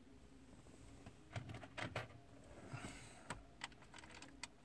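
Scattered light plastic clicks and taps from a car's heater control panel being handled, with a brief scraping rustle near the middle.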